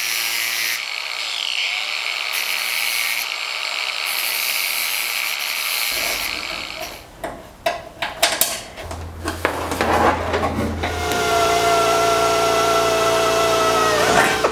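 A Ryobi angle grinder grinding metal for about six seconds. After some clicks and handling, a cordless drill runs steadily for about three seconds near the end, drilling into the aluminum panel, and winds down as it stops.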